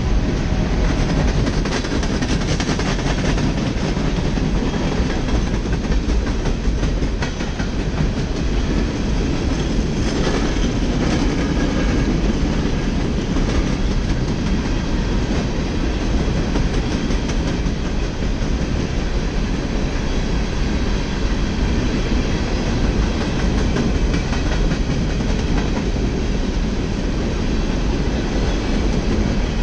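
Empty steel coal hopper cars of a freight train rolling past close by, a steady run of wheel clicks and rattling on the rails.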